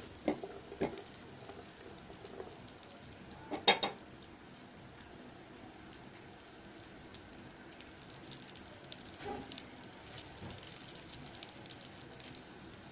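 Cashew nuts and raisins frying in hot ghee in a metal pot, a steady quiet sizzle. A few sharp knocks of the stirring spoon against the pot, the loudest about four seconds in.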